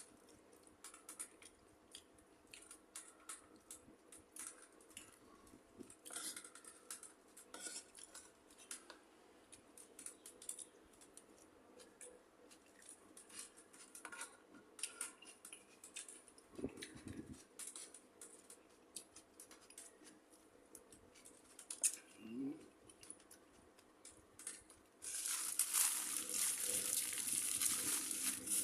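Scattered light clinks and taps of dishes and utensils during a meal, then from about 25 seconds in a loud steady rush of running water.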